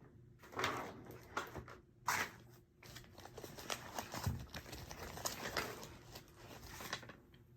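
Rummaging through craft supplies while looking for a roll of double-sided tape: irregular rustling and crinkling of paper and packaging, with small knocks and clicks as items are moved about. The loudest rustles come in the first two seconds or so.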